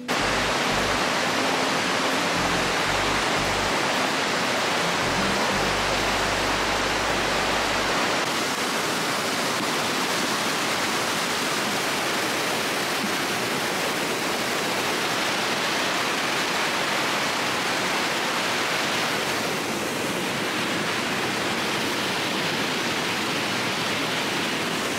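Mountain stream rushing and cascading over rocks, a loud steady roar of white water.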